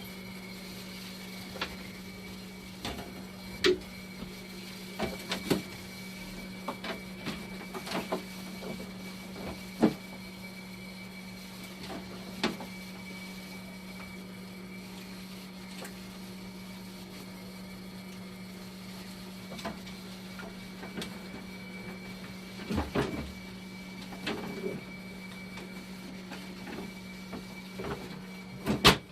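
Dialysis machine running with a steady hum and a faint high whine, with scattered clicks and knocks of hands and tools working on its parts, the loudest knock near the end.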